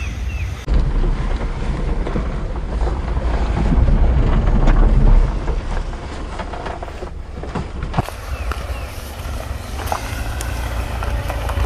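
Daihatsu Hijet mini truck driving loaded with firewood, its small engine running with a steady low rumble. The sound changes at shot cuts about a second in and about eight seconds in, between the view from inside the cab and the view from outside.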